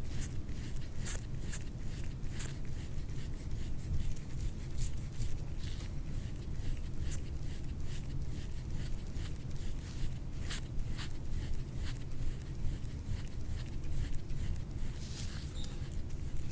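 Short, repeated rubbing strokes on skin during soft-tissue massage of the superficial tissue layer, several a second and uneven, over a steady low hum.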